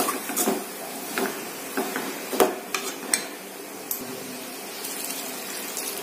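Steel ladle stirring and scraping vegetables in a metal kadai, with sharp metal-on-metal knocks every half second or so, over a steady hiss of the vegetables frying.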